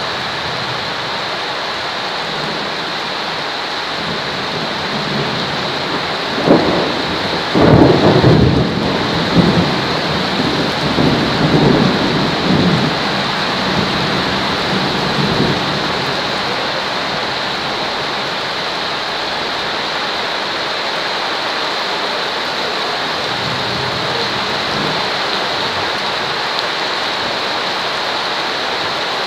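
Steady heavy rain hiss with a roll of thunder that breaks in about six seconds in, is loudest a couple of seconds later, and rumbles on in a few waves before fading out about ten seconds after it began.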